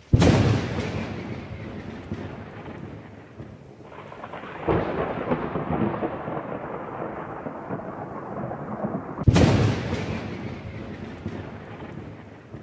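Thunder sound effect: three sudden claps about four and a half seconds apart, each trailing off into a long rumble.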